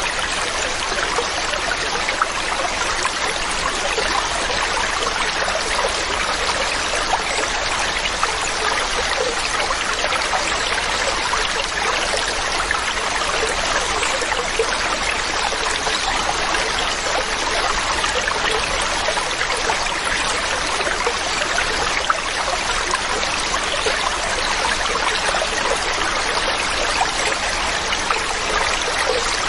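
Water of a waterfall rushing and splashing, a steady, even sound.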